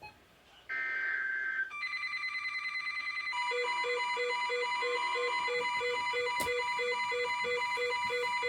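Emergency Alert System broadcast of a National Weather Service special marine warning: a one-second burst of digital header data, then an electronic alert of several steady tones sounding together. About a second later a beep starts pulsing about three times a second underneath. The steady tones cut off near the end, leaving a single steady tone.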